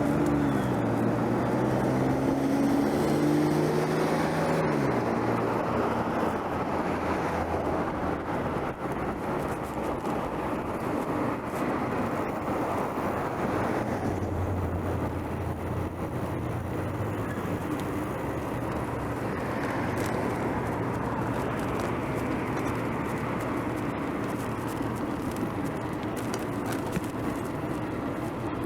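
Street traffic heard from a moving bicycle. In the first few seconds a motor vehicle's engine passes close by, its pitch dropping as it goes past; after that comes a steady rush of traffic and road noise, with another vehicle's low engine note around the middle.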